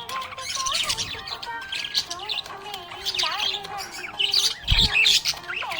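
Budgerigar warbling and chirping without a break, a mix of wavering whistled notes and quick high chirps. A brief low thump comes about three-quarters of the way through.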